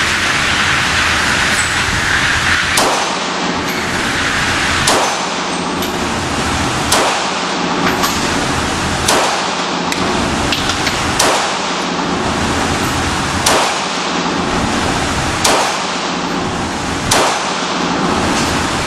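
Ruger .40 caliber pistol fired at a slow, steady pace: about eight shots, roughly two seconds apart, over a steady hiss.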